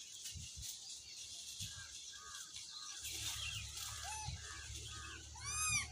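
Rhesus macaques calling: soft short chirps repeat a couple of times a second, then one louder, clear, arched coo near the end.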